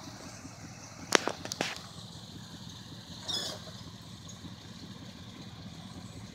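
Lifted 1998 Chevy Silverado Z71 with dual exhaust running low and steady as the truck crawls slowly along a trail, with a few sharp clicks just after a second in.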